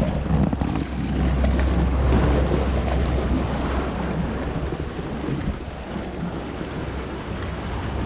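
Sea surf surging and washing through channels between coastal rocks, with wind buffeting the microphone in a steady low rumble.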